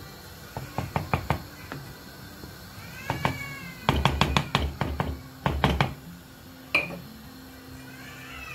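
Wooden spoon stirring rice in a steel pot and knocking against the pot, in a cluster of sharp knocks about a second in and a longer run from about four to six seconds in. A short high squeal, rising then falling, comes about three seconds in and again near the end.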